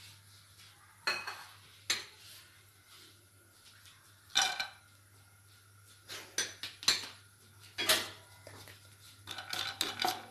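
Kitchen utensils knocking and clattering against a non-stick kadhai: scattered single knocks, a louder clatter as cashews are tipped into the ghee in the pan, then a quick run of scrapes and taps from a wooden spatula stirring them near the end. A low steady hum runs underneath.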